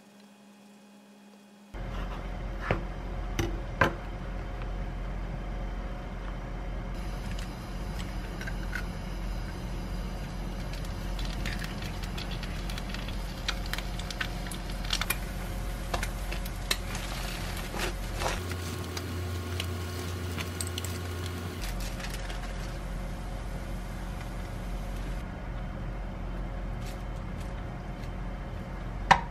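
An egg frying in a non-stick pan, crackling lightly over a steady low hum, with scattered clicks and knocks of utensils against the pan and board.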